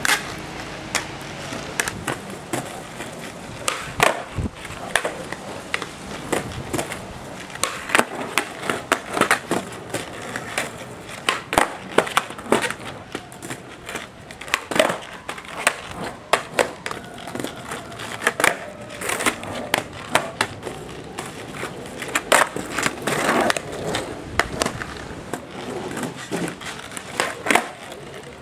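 Skateboard on a concrete sidewalk during flatground tricks: wheels rolling over the concrete, with many sharp clacks and slaps of the tail popping and the deck landing, scattered irregularly throughout.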